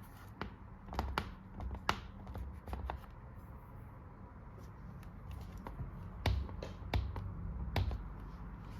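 Handling noise: scattered clicks and taps of hands at work, in a cluster about a second in and another from about six to eight seconds in, over a low steady room hum.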